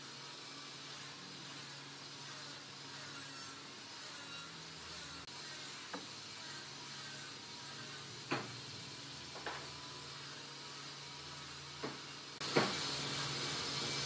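A few sharp, light knocks of wooden boards being set against each other and fitted together by hand, over steady background hiss that gets louder near the end.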